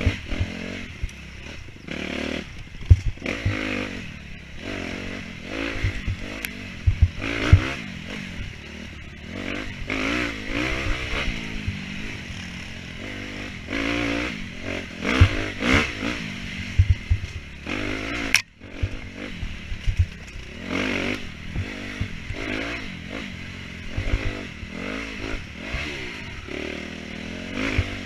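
Dirt bike engine revving up and down over and over as it is ridden hard through an enduro course, with thumps and clatter from the rough ground.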